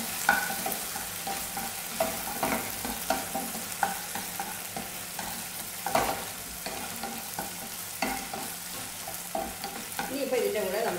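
Sauce of sautéed ginger, garlic, green chillies and curry leaves sizzling in hot oil in a nonstick kadai while a wooden spatula stirs it, with irregular knocks and scrapes of the spatula against the pan, one louder about halfway through.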